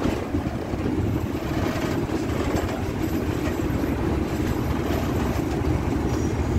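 Class 37 diesel locomotive moving along the track, its English Electric V12 engine and its wheels on the rails making a steady, even running noise heard from the cab-side window.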